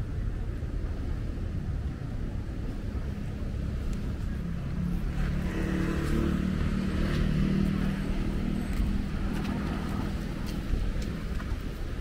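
A motor vehicle's engine passing by on the road, growing louder for a few seconds and then fading away, over a steady low rumble of street noise.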